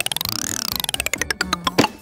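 Edited-in percussion sound effect: a fast run of struck, pitched notes, like a xylophone run, that sweeps up and then back down, followed by a sharp click near the end.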